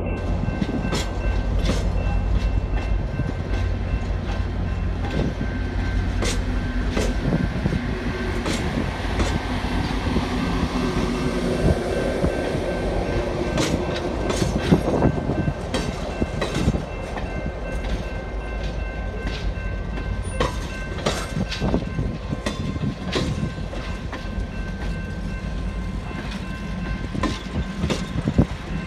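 Grand Canyon Railway passenger cars rolling past, their wheels clicking irregularly over the rail joints, over a steady low rumble of wind on the microphone.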